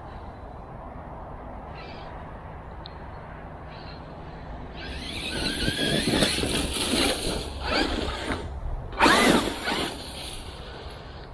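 Traxxas E-Revo 2 RC monster truck's electric motor whining, rising and falling in pitch as the truck is driven hard over leaf litter, with a rushing noise from the tyres. The whine starts about halfway in and peaks in a quick rev up and down near the end.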